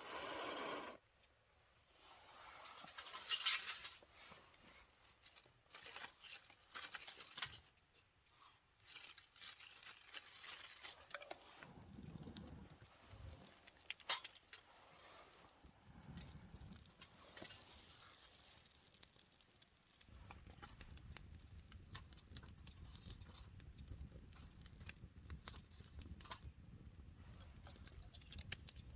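Irregular rustling, crinkling and light clicking of things being handled, with a few louder bursts in the first half.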